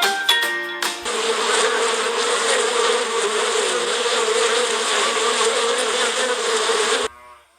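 Honeybees from a hive buzzing in a dense, steady drone, which cuts off abruptly near the end. A second of plucked music comes before it.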